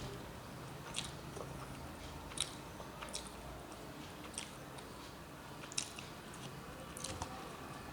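A person chewing a mouthful of rice and vegetables, with wet mouth clicks and smacks about once a second, over a steady low hum.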